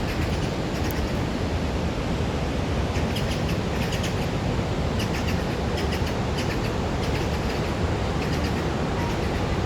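Steady rush of the Iguazu waterfalls, with short, high bird chirps repeating over it from about three seconds in.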